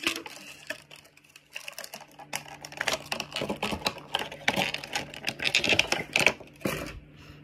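Clear plastic toy packaging handled and pulled at: a rapid, irregular run of clicks and crackles, busiest in the second half.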